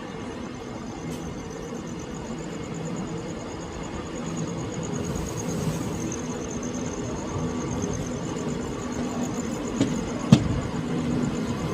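Steady mechanical rumble with a low engine hum, and a single sharp knock near the end.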